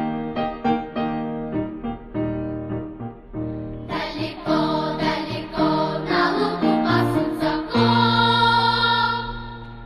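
Background music: a light tune of short repeated notes that grows fuller about four seconds in, with choir-like voices, ending on a long held chord.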